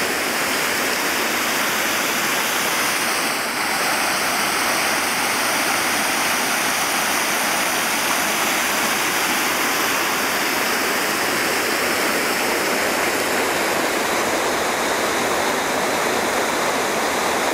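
Flowing water rushing steadily, with a faint, steady high-pitched tone or two above it.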